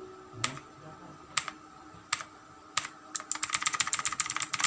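Gigaware K550 tenkeyless mechanical keyboard with clicky blue switches being typed on. A few single keystrokes come first, then about three seconds in it breaks into fast continuous typing.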